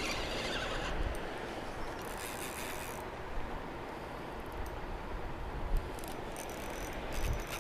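Spinning reel being cranked steadily to reel in a hooked fish, its gears whirring faintly under a steady wind-like rush.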